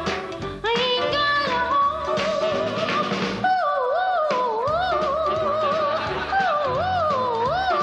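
A woman sings high, wordless held notes into a microphone over a small band's accompaniment. About halfway through her voice breaks into a wide, slow warble, swooping up and down.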